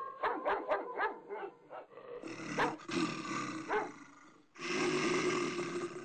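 Animal sound effects spliced together: a quick run of about seven short barking calls, then rough growling, loudest in a long growl near the end.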